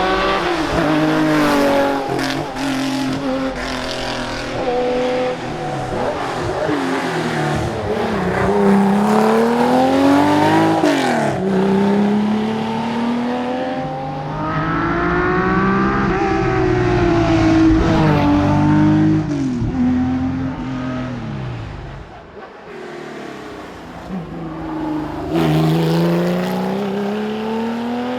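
Porsche 911 RSR's flat-six engine being driven hard, its pitch climbing through each gear and dropping sharply at the shifts. It eases off and goes lower and quieter for a few seconds near the end, then builds again.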